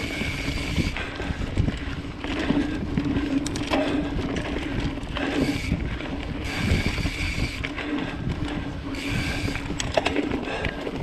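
Mountain bike rolling fast along a dirt forest singletrack: steady tyre noise on the packed dirt with rattling and knocks from the bike over bumps, a sharp knock near the end, and wind on the microphone.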